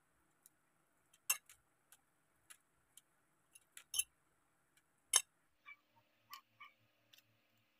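Metal fork clinking and tapping against a ceramic plate as scrambled eggs are scraped off it: a string of irregular sharp clicks, the loudest three about 1.3, 4 and 5 seconds in.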